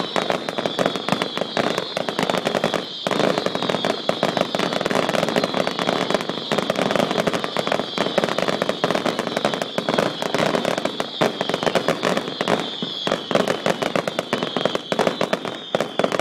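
Aerial fireworks bursting in a dense, continuous barrage of bangs and crackles, many reports a second, with a brief lull about three seconds in.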